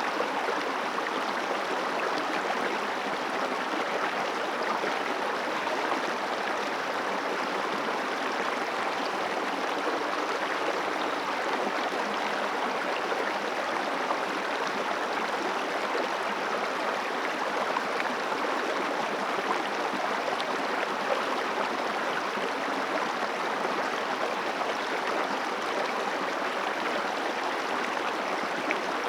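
Water of a mountain river flowing over rocks, a steady rushing and gurgling.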